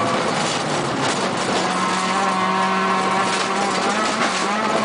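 Peugeot 206 rally car's engine pulling at high revs, heard from inside the cabin over a hiss of tyres on gravel. The engine pitch holds steady, shifting briefly near the start and again near the end.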